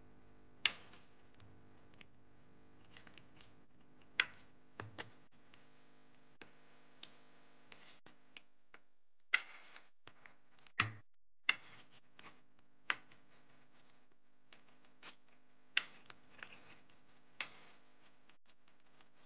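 Wire potato masher working boiled potatoes in a stainless steel pot, its metal knocking and clinking against the pot now and then, about a dozen sharp irregular clicks, over a faint steady hum.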